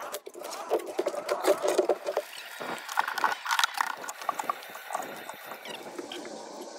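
Fast, sped-up clatter of carpentry: sharp shots of a pneumatic framing nailer driving nails through OSB gusset plates into 2x6 roof trusses, mixed with the knocks of lumber being handled.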